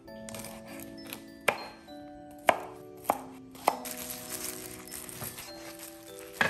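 Knife chopping on a cutting board, a handful of separate sharp strokes at uneven intervals, over light background music with held notes.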